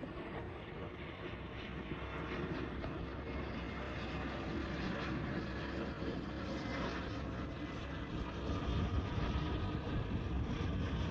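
Jet airliner on landing approach, its engine noise a steady rush that grows louder as it comes closer, most clearly near the end.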